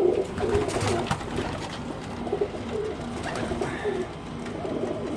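Domestic pigeons cooing in a loft, several birds at once in short overlapping coos, with a few brief flutters or scuffles.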